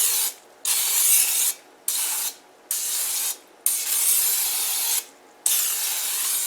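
Aerosol cooking spray hissing in a series of short bursts, about six, with brief breaks between them, as the inside of a slow cooker is coated with nonstick spray.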